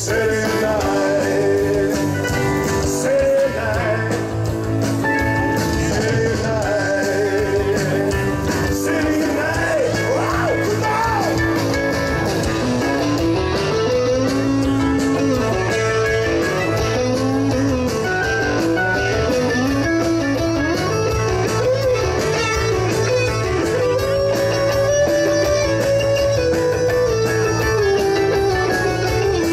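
Live rock band playing amplified: electric guitars, keyboard, bass and drum kit through the stage PA.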